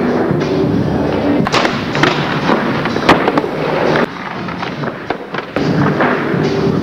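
Skateboards clattering on wooden ramps and floor, with repeated sharp board pops and landing smacks over music. The sound drops quieter for about a second and a half from four seconds in.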